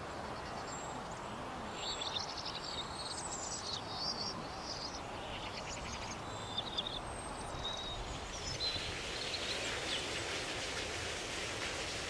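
Outdoor ambience: small birds chirping and trilling over a steady background hiss. From about two-thirds through, a denser, higher hiss joins in.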